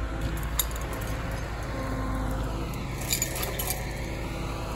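Liebherr wheeled excavator's diesel engine running steadily, with a few light metallic clinks about three seconds in.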